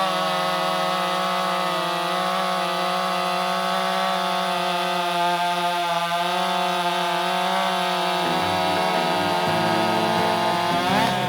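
Two-stroke chainsaw running steadily at high revs, holding an even pitch. Music comes in about eight seconds in.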